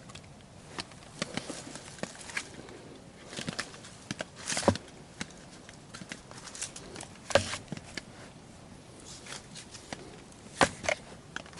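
Rustling and scattered knocks of camping gear being handled and moved about, with three louder sharp knocks spread through.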